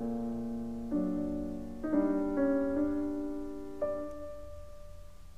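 Background piano music: slow chords and notes, each struck and left to fade.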